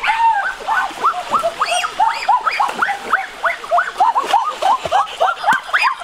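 Many short yelping animal calls, each rising and falling in pitch, several a second and overlapping in a continuous chatter.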